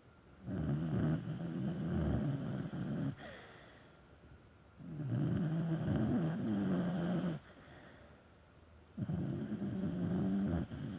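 A dog snoring like a person, in three long snores of about two and a half seconds each, coming roughly every four seconds, with much quieter spells between them.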